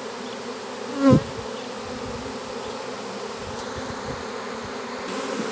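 Honeybee swarm buzzing steadily around a hive box. About a second in, one bee flies close past with a brief, louder buzz that drops in pitch.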